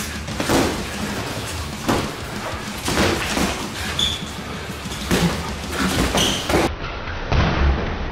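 Boxing gloves landing during a sparring exchange: about ten sharp padded thuds, irregularly spaced.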